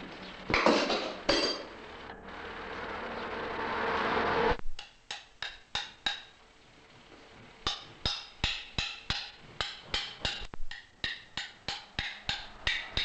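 Farrier's hammer striking an anvil in a steady ringing rhythm of about two to three blows a second, from about five seconds in. Before it come two loud knocks and a swelling noise that cuts off abruptly.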